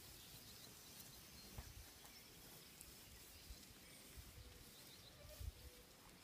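Near silence: faint open-air rural ambience with a few faint high bird chirps and an occasional soft low thump.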